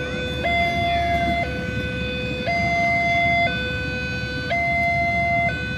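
Railway level-crossing warning alarm sounding a steady two-tone electronic chime, switching between a lower and a higher tone about once a second. Underneath is a low rumble from the passing train.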